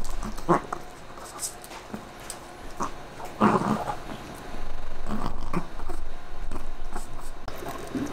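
Chihuahuas giving short growls and whines over a dried calf neck bone, amid clicks of chewing. The loudest sound is one growl about three and a half seconds in, and a low rumble holds for a few seconds after it.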